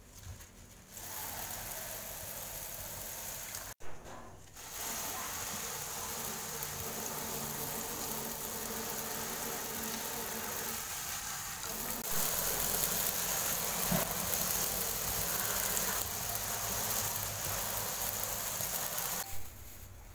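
Tap water running into a stainless steel sink and splashing onto papaya leaves being rinsed by hand in a plastic colander. It starts about a second in, breaks off briefly near four seconds, gets louder about halfway through, and stops shortly before the end.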